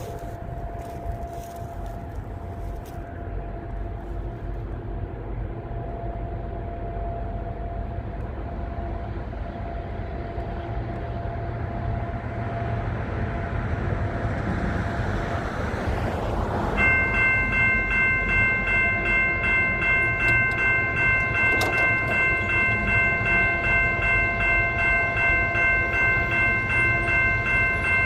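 Freight train approaching, its locomotive engine and wheels rumbling louder and louder. About 17 s in, the lead locomotive's multi-chime air horn starts and sounds one long steady chord to the end.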